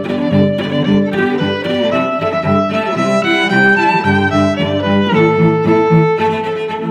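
Background music played on bowed strings, violin and cello, with notes changing about every half second.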